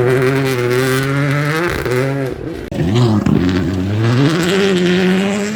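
Rally car engine being worked hard: revs climb and hold high, drop off about halfway with a couple of quick blips, then climb and hold high again.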